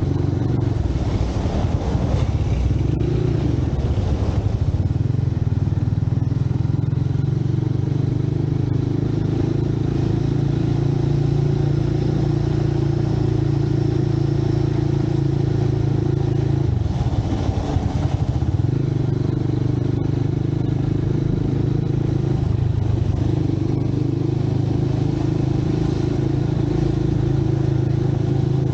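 Motorcycle engine running steadily under way, with a brief dip and break in the engine note a little past halfway before it settles back to a steady run.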